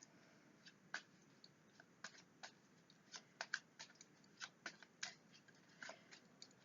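Tarot cards being handled and laid out on a table: a scatter of soft, irregular clicks and taps.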